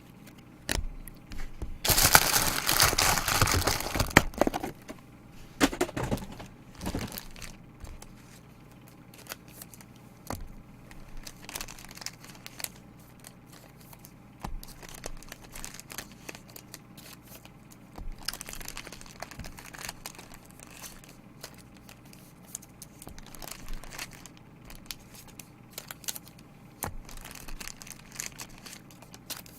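Plastic trading-card wrappers and packaging being crumpled and handled. The loudest crinkling comes about two seconds in and lasts a couple of seconds, with a shorter burst a few seconds later and lighter rustling and small clicks after that.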